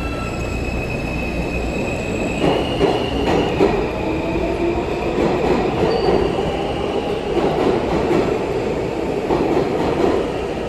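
New York City subway train pulling into the station: a steady rumble of the cars with the wheels squealing in several high, drawn-out tones that shift in pitch.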